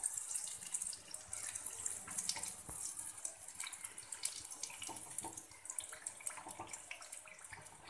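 Batter-coated chicken pieces deep-frying in hot oil: a steady sizzle full of small irregular crackles.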